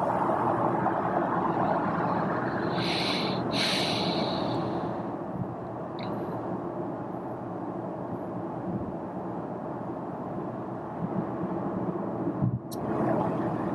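Steady road and wind noise inside the cabin of a Toyota Corolla 125h hybrid cruising at motorway speed. Two short hissing sounds come about three seconds in, and the sound briefly drops out near the end.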